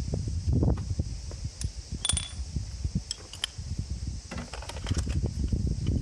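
Light metallic clicks and clinks of hand tools and parts being handled, one clink about two seconds in ringing briefly, over a low rumble of wind on the microphone.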